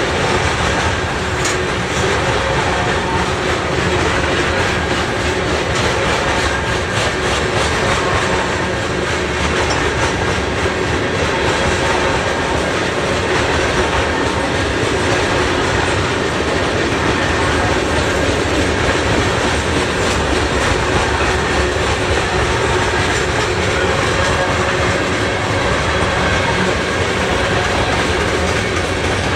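Canadian National freight train rolling past, its wheels clattering steadily over the rails with a continuous rumble.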